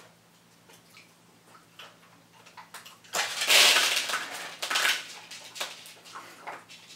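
A paper dog piñata tearing open about three seconds in: a loud burst of paper crackling and rustling, with treats and confetti spilling onto the floor, lasting about two seconds. Scattered small clicks follow as the dachshund noses through the spilled treats.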